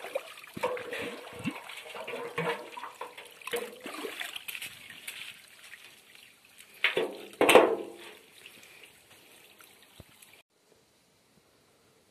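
Water pouring from the spout of a galvanised metal watering can onto soil, splashing and trickling unevenly, with two louder moments about seven seconds in. The sound cuts off suddenly about ten seconds in.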